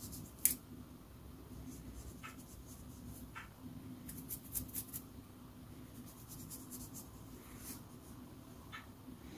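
Faint scratchy rustles and light ticks of fingers sprinkling pinches of flour onto a rolled-out dough round and rubbing it over the surface, with one sharp click about half a second in.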